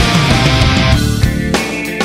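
Heavy rock music with distorted electric guitar; the dense full-band sound thins out about halfway through.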